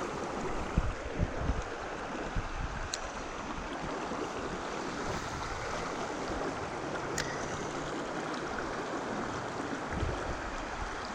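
Creek water running in a steady rush, with a couple of faint clicks.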